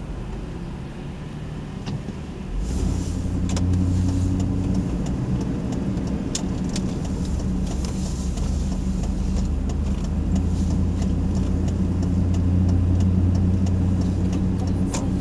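Hummer H2's V8 engine pulling away from a standstill about three seconds in, then running steadily as the vehicle drives on.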